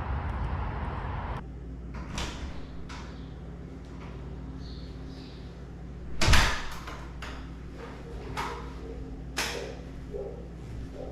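Steady outdoor wind noise cuts off about a second and a half in. After it come indoor clicks and knocks as someone comes in at the front door and handles a bag. About six seconds in there is one heavy thump, the loudest sound.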